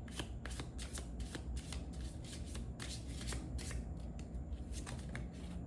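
An oracle card deck being shuffled by hand: a steady run of quick card clicks, several a second.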